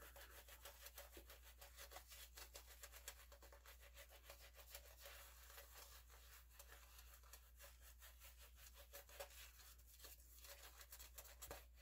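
Faint, rapid scratchy rubbing of a shaving brush swirling lather over a freshly shaved scalp.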